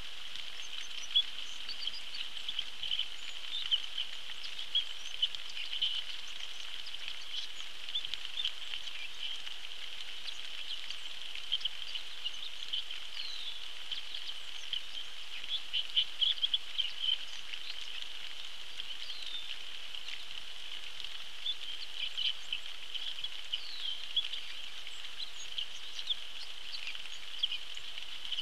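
Steady rain falling on a pond, a constant high hiss with many irregular louder drips and ticks scattered through it.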